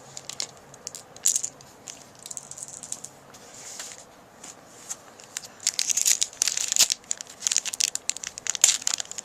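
Foil wrapper of a Magic: The Gathering booster pack crinkling and tearing as it is opened by hand, in scattered crackles at first and then in a busier run of crinkling over the last few seconds.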